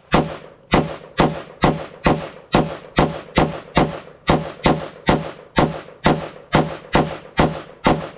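AR-15 rifle fired semi-automatically in a steady string, a little over two shots a second, about eighteen shots, the last coming near the end. Every round feeds from the ETS magazine without a stoppage.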